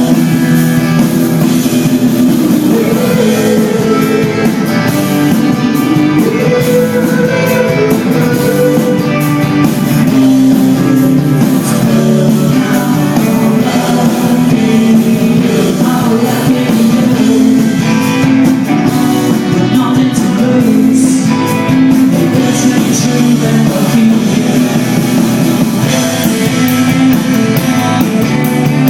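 Live rock band playing a song at full volume: guitars and bass over drums, with a singing voice on top.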